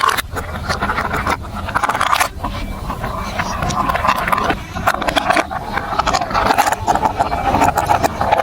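Marbles rolling and clattering along a plastic building-block marble run track: a continuous rolling rumble dotted with many small clicks and knocks.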